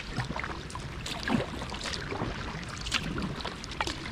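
Kayak paddling in the rain: paddle blades dipping and splashing, with irregular drips, over an even hiss of rain falling on the river.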